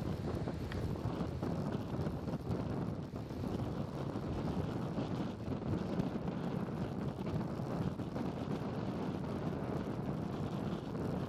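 Wind buffeting the microphone: a steady, fluttering low rumble with no distinct events.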